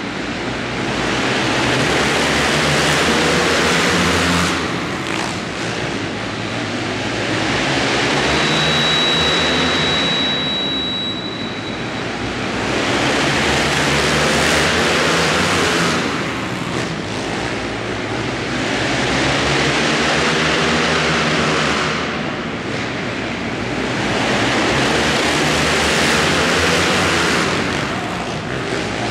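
Several racing quad (ATV) engines running hard on an indoor dirt short track, swelling and fading in waves about every five to six seconds as the pack passes, revs rising and dropping through the corners.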